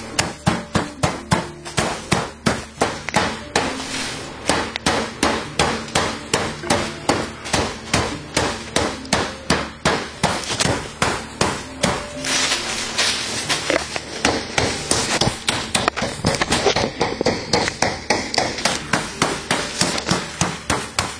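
Hammer blows on a freezer bag of frozen drone brood comb, struck hard at a steady rate of about two to three blows a second. Each blow cracks the frozen wax cells apart, knocking the drone larvae and pupae free of the comb.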